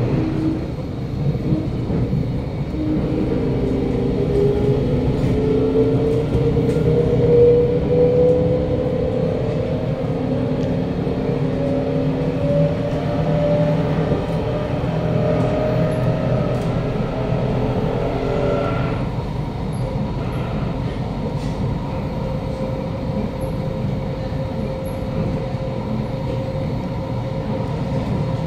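Kawasaki Nippon Sharyo C751B metro train heard from inside the car as it accelerates: the strong, robotic-sounding traction motor and inverter whine, several tones climbing steadily in pitch, stops abruptly about 19 seconds in as power is cut. A constant low rumble of wheels on track runs underneath throughout, with a steady hum remaining after the whine stops.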